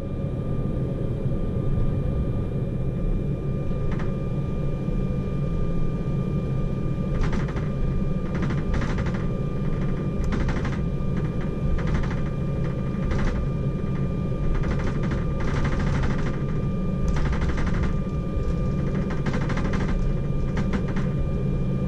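Cabin noise inside an Embraer E190/195 jet taxiing: a steady low rumble with a thin steady whine above it. From about seven seconds in come irregular bursts of rattling clicks.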